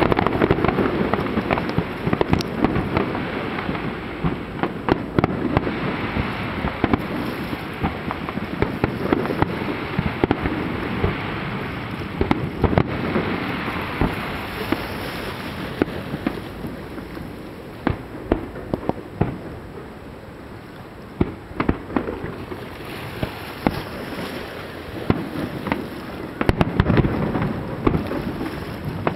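Aerial fireworks display: shells bursting with sharp bangs over continuous crackling, many in quick succession. The bangs thin out for a few seconds past the middle, then come thick again near the end.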